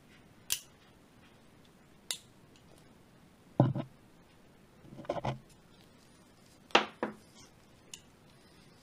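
Steel dental pick clicking and knocking against the slide catch spring and steel frame of a Magnum Research Desert Eagle Mark XIX pistol as the spring is pried out of its retaining hole. About seven sharp, separate clicks at uneven spacing; the loudest come a little over three and a half seconds in and just under seven seconds in.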